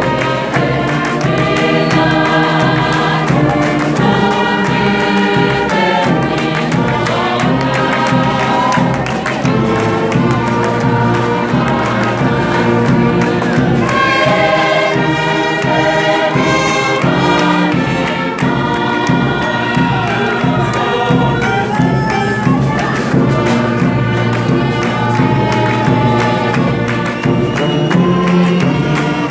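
Gospel choir singing in harmony, backed by a brass band with sousaphones, with the singers clapping.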